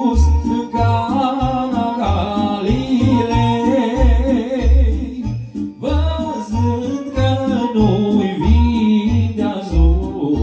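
A man sings a Romanian Christmas carol (colindă) into a microphone, his melody wavering with vibrato, over a Korg electronic keyboard accompaniment with a steady beat of deep bass pulses about twice a second and a ticking cymbal pattern.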